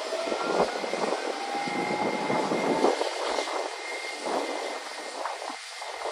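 Airbus BelugaXL's twin Rolls-Royce Trent 700 turbofans running at taxi power as the aircraft taxis: a steady jet hiss with a thin high whine. A fainter whine rises slightly in pitch over the first few seconds.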